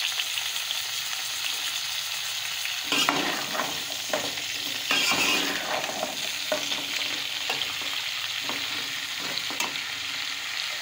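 Sliced potatoes sizzling in hot oil with cumin seeds in a metal pot, and from about three seconds in a metal spoon scraping and clattering against the pot as they are stirred.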